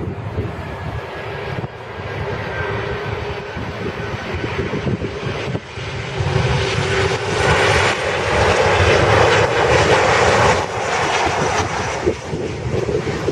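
Jet airliner's engines passing close by, the noise swelling to a peak about two-thirds of the way through and then easing slightly.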